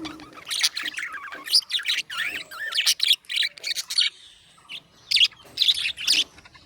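Budgerigars chirping and warbling in quick, busy bursts of short high notes, with a brief lull about four seconds in before the chirping picks up again.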